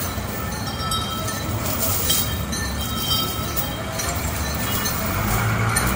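Steady rumbling street noise, with short, faint high tones over it.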